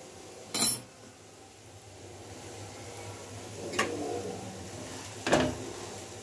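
A steel spatula clinking and scraping against an iron tawa as it works under a cooking chickpea-flour pancake: a sharp click about half a second in, then two more scrapes near four and five seconds, over a faint steady low hum.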